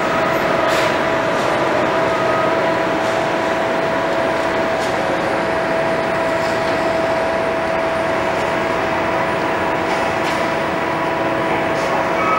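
R160-series New York subway train on elevated track, giving a steady electric hum with a constant tone over rumbling rail noise and a few faint clicks.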